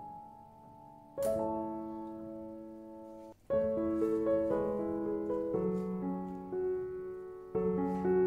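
Soft, slow background piano music, with notes struck and left to ring, growing fuller about three and a half seconds in.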